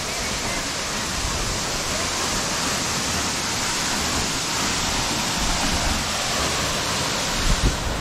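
Waterfall plunging into a deep pool, a steady, even rushing of water, with a few low thumps near the end.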